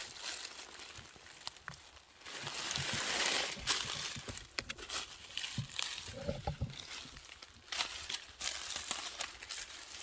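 Rustling and crackling of leaves and plant stems in forest undergrowth as someone pushes through and handles the plants, with scattered sharp snaps and a louder swishing rush about two seconds in.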